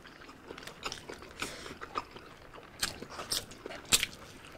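Close-up mouth sounds of people chewing and biting into chicken and biryani rice eaten by hand: irregular wet clicks and smacks, the sharpest about four seconds in.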